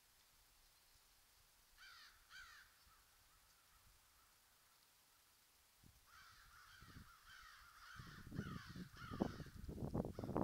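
Wild turkeys calling: two short calls about two seconds in, then a run of repeated yelps from about six seconds to nine and a half seconds. From about eight seconds on, a series of low thumps close to the microphone is the loudest sound.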